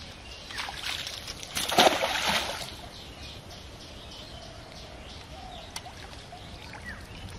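A hand-held scoop net with a metal ring frame splashes into pond water about two seconds in, a single short splash that is the loudest sound here.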